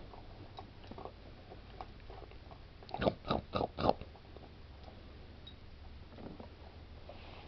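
A puppy chewing a treat, with small scattered crunches and a quick run of four louder crunches about three seconds in.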